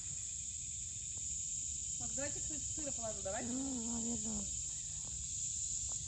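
Steady, high-pitched chorus of insects trilling without a break. A quiet voice talks briefly in the middle.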